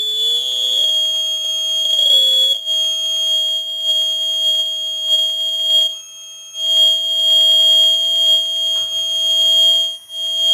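Passive piezoelectric buzzer driven by a homemade oscillator through a mains filter transformer, with the tone signal of an automatic colour-changing LED injected into it. It sounds a loud, piercing high tone over a lower tone that glides upward at the start and then holds steady. The sound cuts out briefly twice, as the LED's signal changes.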